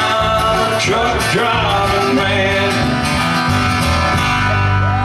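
Live country band playing: strummed acoustic guitars and upright bass under sung vocals, with a long held sung note near the end.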